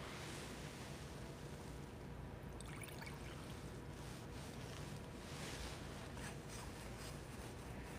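Faint sounds of metal altar vessels being purified: soft wiping and handling of the chalice and a smaller vessel, with a few light clinks, over a low steady room hum.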